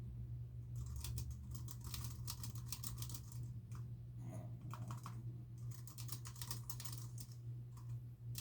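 Typing on a computer keyboard: two quick runs of key clicks with a short, sparser pause between them, over a steady low hum.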